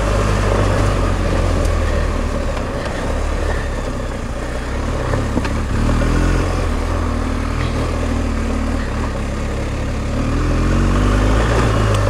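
BMW R1250 GS Adventure's boxer-twin engine running while the bike is ridden along a rough dirt track, its pitch rising and falling several times with the throttle. A few sharp clicks come through at intervals.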